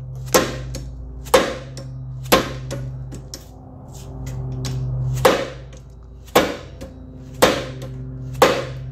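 Dead blow hammer striking the ATV's front suspension joints to knock them loose: about seven sharp blows roughly a second apart, with a pause of a couple of seconds in the middle, over a low steady hum.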